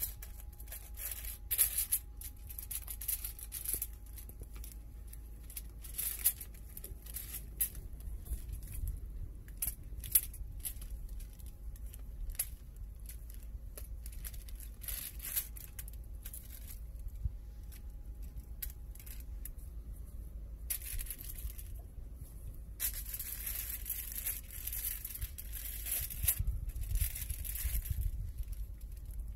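Aluminium foil crinkling and crackling as gloved hands handle a fish lying on it, in many short irregular crackles, growing denser and longer near the end.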